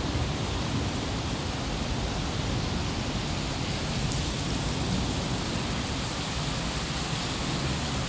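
Heavy rain pouring down steadily, a dense, even hiss without a break.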